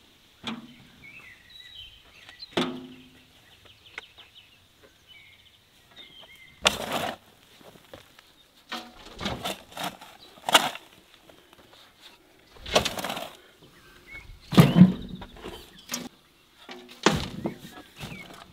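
Shovels biting into dry, clumpy soil and dirt being thrown into a tractor trailer bed: irregular scraping strikes and thuds a second or more apart, the heaviest about 15 seconds in. Birds chirp faintly between the strikes.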